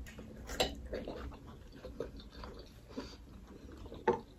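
Quiet chewing and mouth sounds of people eating momo dumplings, with a few soft, scattered clicks and smacks.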